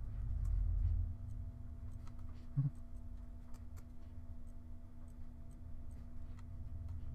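Faint, scattered computer mouse clicks over a steady low electrical hum, with one short soft thump about two and a half seconds in.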